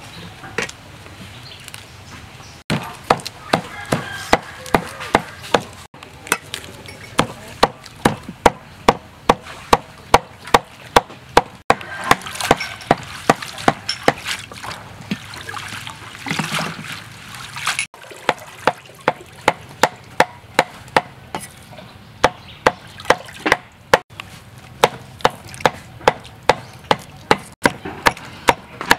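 Steel cleaver chopping on a cutting board in quick, regular strokes, about two to three a second, mincing meat. About halfway through there is a stretch of water splashing in a bowl as greens are washed.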